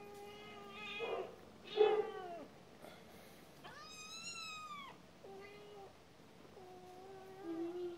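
Cat meowing: a run of about five drawn-out meows. The loudest two come about one and two seconds in, and a higher meow that rises and falls comes near the middle.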